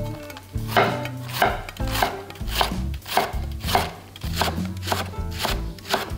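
Chef's knife shredding a napa cabbage leaf on a wooden cutting board: a steady rhythm of crisp cuts, a little under two a second, each blade stroke ending in a knock on the board.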